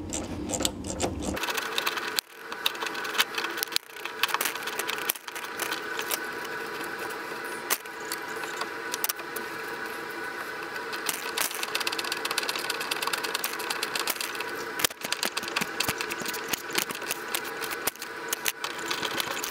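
Worm-drive hose clamps on a fuel tank's filler hoses being tightened with a driving tool: a steady run of rapid, uneven mechanical clicks.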